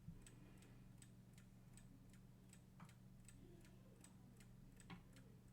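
Hermle 340-020 mechanical clock movement with a floating balance ticking evenly and faintly, about two and a half ticks a second, over a low steady hum. The movement is running strong but is unoiled after sitting for over five years. Two slightly louder clicks come about 3 s in and near the end.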